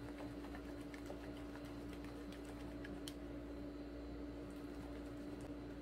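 Spatula stirring a powdered-sugar glaze in a plastic measuring cup: faint, scattered light ticks and taps against the cup, with a sharper click about three seconds in. A steady low hum runs underneath.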